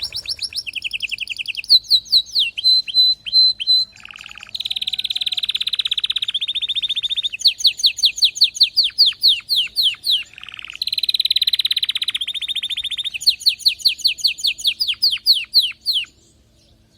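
Domestic canary singing an excited, fast song of rapid trills and rolls, switching to a new phrase every second or two. The song stops about a second before the end.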